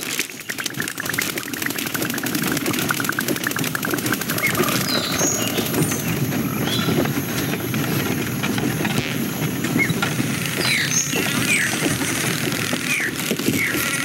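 Sound-effects track of an animated film: a steady rushing ambience with scattered short high chirps and squeaks, and a rapid flutter in the first few seconds.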